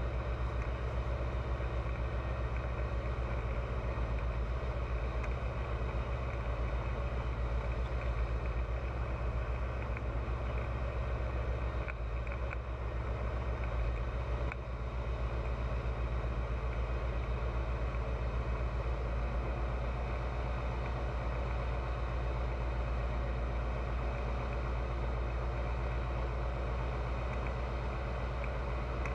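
Pipistrel Virus light aircraft's piston engine and propeller running steadily in flight, a constant low drone.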